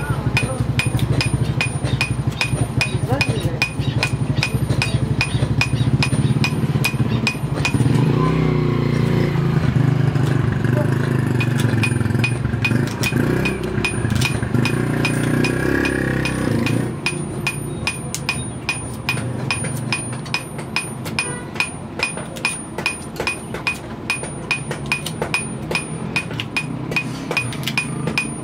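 Hammer blows on steel at an anvil in a steady rhythm of about two to three strikes a second, each with a metallic ring. For the first half a low engine-like hum and voices run underneath, ending about seventeen seconds in.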